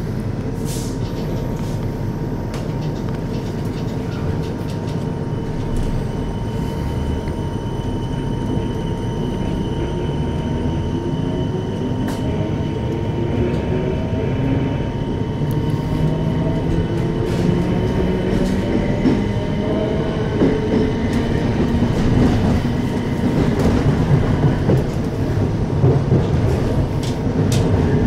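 Inside the passenger saloon of a British Rail Class 455 electric multiple unit pulling away: a steady hum and rumble under the floor, then a whine from the traction motors rising in pitch in several steps as the train gathers speed. Clicks from the wheels grow more frequent and the sound gets a little louder toward the end.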